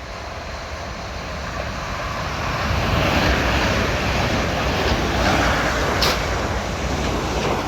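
Two coupled Class 450 electric multiple units passing through the station at speed without stopping: a rush of wheel and air noise that builds over the first three seconds and stays loud, with a couple of sharp cracks about six seconds in and again near the end.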